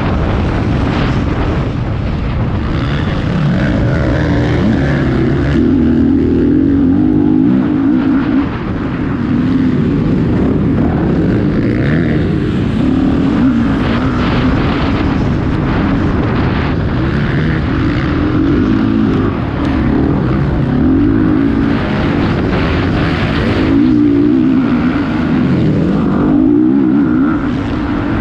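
Motocross bike engines racing, revving up and falling back again and again without a break.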